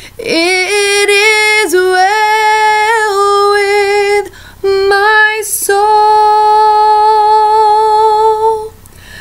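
A woman singing a hymn solo and a cappella, slow and sustained. There is a short breath pause about four seconds in, then a last note held for about three seconds before she stops near the end.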